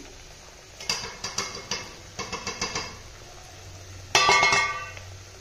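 Metal spatula and steel bowl clinking against an iron kadhai as spices are knocked off into hot oil. There is a run of quick sharp clinks about a second in and another about two seconds in, then a louder ringing clang about four seconds in.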